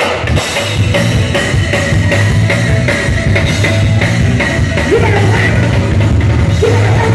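Live gospel band playing a fast, loud praise break on drum kit and electric bass. The full band comes in at once right at the start and keeps going without a break.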